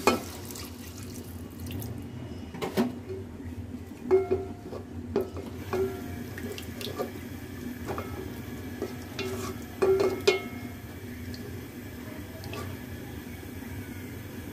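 Chicken pieces sloshing in a thin spiced gravy as a spatula stirs them in an aluminium pot, with a steady low background. The spatula knocks against the pot now and then, each knock ringing briefly, in a cluster a few seconds in and again about ten seconds in.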